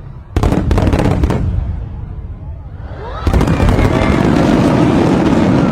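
Fireworks exploding: a quick volley of sharp bangs about half a second in, then from about three seconds in a dense run of rapid crackling bangs over a rumble.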